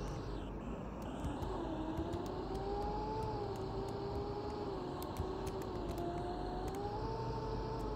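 Mercedes-Benz OC500LE diesel bus under way: a steady low rumble with a whine that sets in about a second and a half in and rises and falls with road speed, over light ticks and rattles.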